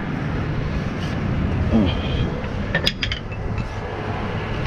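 Hand tools working against rusted metal on a truck: a short falling creak about two seconds in, then a quick run of sharp metallic clinks, over a steady low hum.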